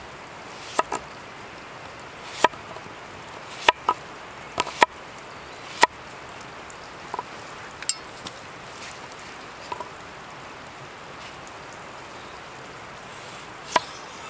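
A kitchen knife chopping vegetables on a board: about a dozen sharp knocks at irregular intervals, each with a brief ringing tone, over a steady background hiss.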